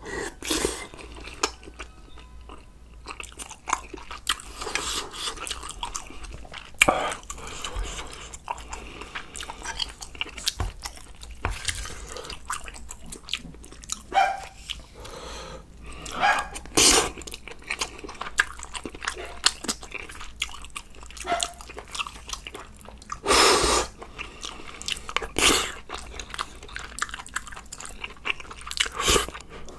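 Close-up eating sounds of a spicy sundae and gopchang hot pot with rice: wet chewing and smacking, with short sharp clicks throughout and a few longer slurps.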